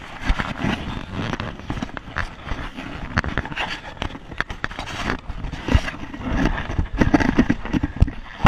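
Handling noise from a GoPro being moved about: irregular rustling, scraping and sharp knocks as the camera rubs and bumps against clothing.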